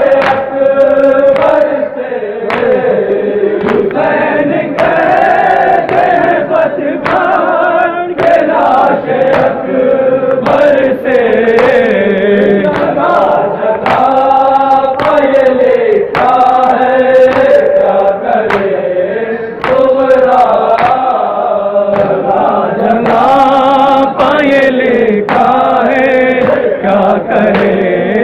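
Men's voices chanting a nauha, a mourning lament, in unison behind a lead reciter, with sharp chest-beating (matam) strikes about once a second.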